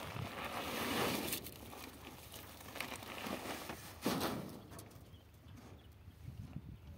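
Plastic sacks rustling and being shifted about in a steel farm trailer, with a sharp thump about four seconds in.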